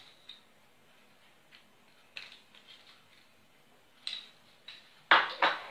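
A metal teaspoon clicking and scraping against a small glass cup as a runny mixture is scooped out and spooned into a paper cone. The sounds come as scattered light clicks, with the two loudest just after five seconds in.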